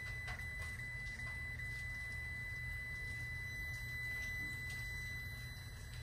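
Steady high-pitched electronic beep from a test meter's continuity tester, held for several seconds and cutting off near the end: the probes are across a closed circuit.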